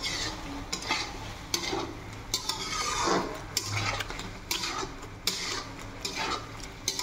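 A metal utensil stirring and scraping food in a kadai, clinking against the pan every second or so.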